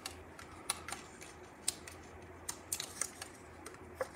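Fingernails picking and peeling the small release backings off adhesive foam dimensionals on a paper card panel: faint, irregular little clicks and ticks, a few sharper ones scattered throughout.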